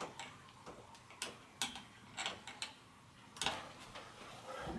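Light, irregular metallic clicks and taps of a long hex-socket extension turned by hand, threading a bolt inside a suspension fork leg finger tight, with a louder knock about three and a half seconds in.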